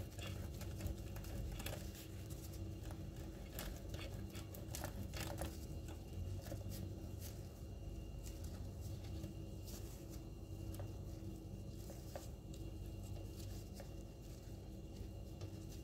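Block of cheese being grated on a stainless steel box grater standing on a ceramic plate: a steady scraping with scattered small clicks.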